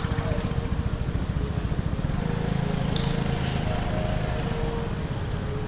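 A vehicle engine running close by with a rapid low throbbing pulse, over general street noise.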